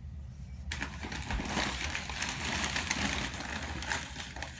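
Packaging being handled and unwrapped from a shipped orchid: dense rustling and crinkling that starts about a second in, over a steady low hum.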